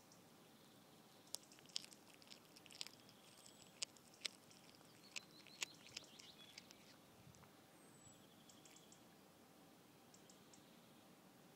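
A cat chewing and crunching a mouse: sharp crunches and clicks, a few a second, that stop about two-thirds of the way through. Faint bird chirps in the background.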